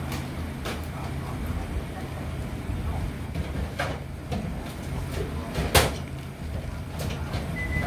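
Black plastic food trays clicking and knocking as boiled shrimp are laid into them by gloved hands, over a steady low hum. A sharp click about six seconds in is the loudest.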